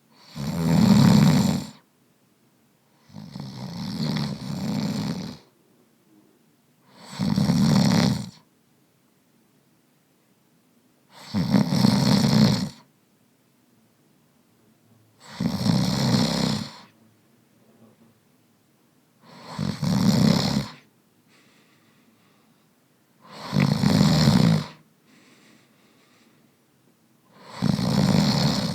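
A man snoring rhythmically, about one snore every four seconds, eight in all, each lasting one to two seconds, with quiet gaps between.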